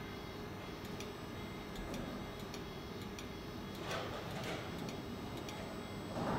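Faint, fairly regular ticking over a steady low hum, with soft whooshes about four seconds in and again near the end.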